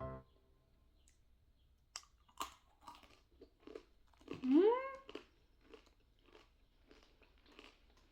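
Close-up crunching and chewing of sugar-coated cashew nuts, a string of crisp crunches about every half second. About four and a half seconds in comes a loud rising 'mmm' from the eater.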